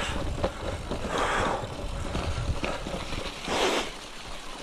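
Electric bike riding over a bumpy grass-and-leaf woodland track: a steady rumble from the tyres with many small clicks and knocks from the bike rattling over the ground. Two louder hissing swells come through, about a second in and near the end.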